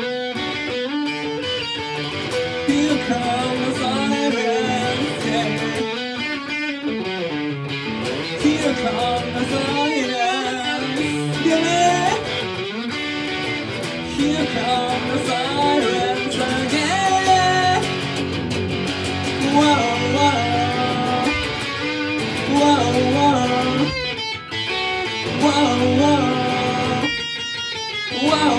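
Electric guitar playing a song, with a voice singing along at times.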